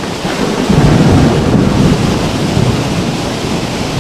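River water rushing steadily. A low rumble of wind on the microphone swells about a second in and eases after about two seconds.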